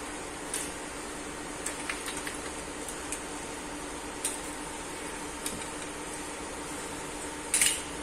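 Scattered light metallic clicks and clinks from an e-bike being handled during assembly, with one louder clatter near the end, over a steady background hiss and hum.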